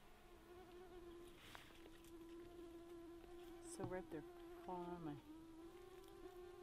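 Faint, steady whine of a mosquito in flight, holding one pitch.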